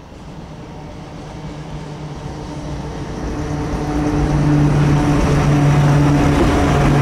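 Chichibu Railway Deki 500-class electric locomotive hauling a freight train of hopper wagons, approaching and passing close by, growing steadily louder, with a steady low hum from about four seconds in as the locomotive goes past.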